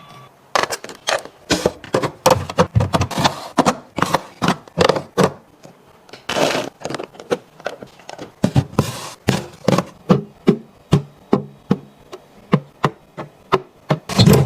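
Plastic fridge containers and bottles being handled and set down: a quick run of clicks and knocks, a few each second, with a couple of longer scraping, rustling stretches.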